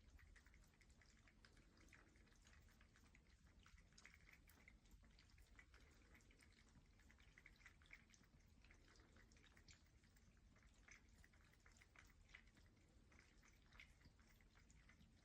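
Faint, irregular water drips and small splashes at a cordless cat water fountain, several each second.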